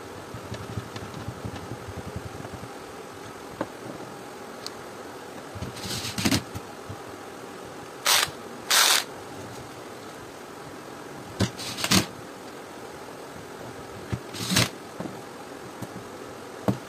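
Makita cordless drill-driver run in about six short bursts, each a fraction of a second, driving screws out of a steam iron's plastic housing, with light clicks of handling between them over a steady background hum.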